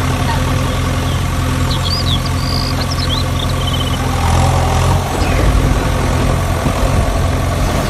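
An engine idling steadily, a loud low drone with a constant pitch. A few short high chirps sound about two seconds in.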